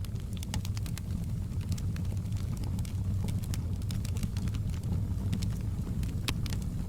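Wood fire crackling, with irregular sharp pops and snaps over a steady low rumble of flames; a louder pop about six seconds in.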